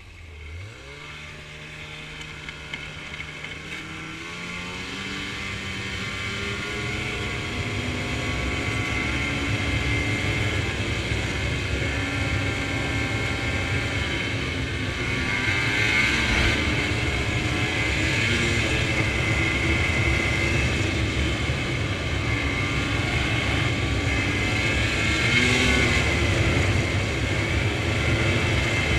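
Snowmobile engine pulling away from low speed, its pitch and loudness rising over the first several seconds, then running steadily at trail speed. It surges louder twice, about halfway through and again near the end.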